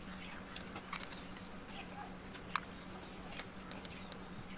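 Scattered sharp clicks of a small knife cutting almonds into slivers, with pieces dropping onto a steel plate; the loudest click comes about two and a half seconds in. A low steady hum runs underneath.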